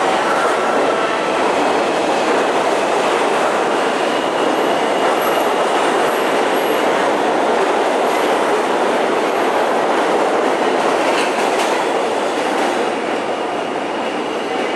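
New York City subway train running through the station alongside the platform: a loud, steady rumble and rattle of wheels on rail with a faint high-pitched whine. There are a few sharp clicks about eleven seconds in, and the noise eases slightly near the end.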